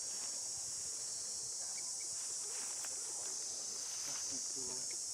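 Insect chorus buzzing steadily at a high pitch, with faint voices in the background.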